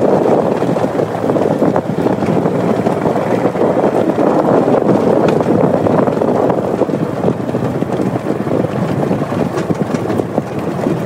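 Steady, loud running noise of a small vehicle's engine moving over rough ground, mixed with wind on the microphone.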